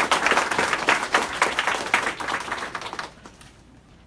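Small audience applauding, a dense patter of many hands clapping that dies away about three seconds in.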